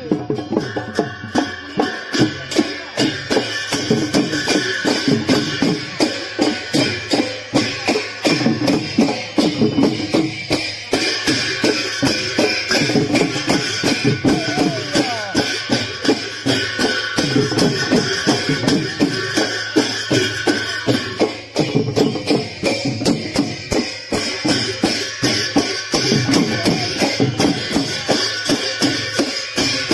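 Large brass hand cymbals clashed in a fast, steady rhythm together with drumming, live dance-procession music.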